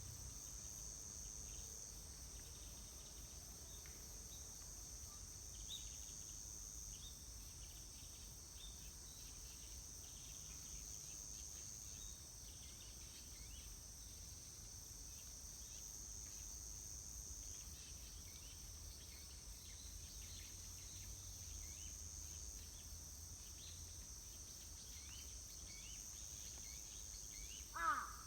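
Insects droning steadily outdoors in a high-pitched chorus that swells and eases every few seconds, with faint scattered bird chirps and a low rumble underneath. Right at the end a crow starts cawing loudly.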